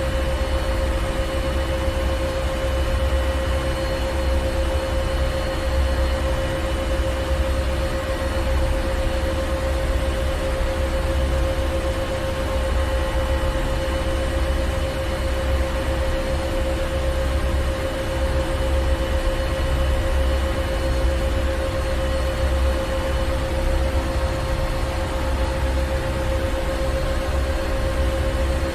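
Ship engine room machinery running steadily: a deep, unbroken low rumble with a constant hum and a few faint steady whining tones above it.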